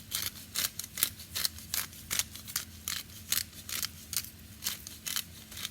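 Quick, crisp kitchen-utensil strokes at the pan, about four a second, as the saltfish is worked after the pepper goes in.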